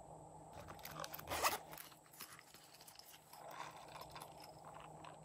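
Zipper on a pink silicone pop-it cat pouch being pulled open, a scratchy zipping sound in two short runs: the louder about a second in, the other just past three seconds.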